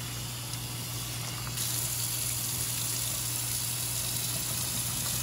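Kitchen faucet running, a stream of water pouring into a plastic tray of pinto beans and splashing into a stainless steel sink. The splash grows brighter about a second and a half in.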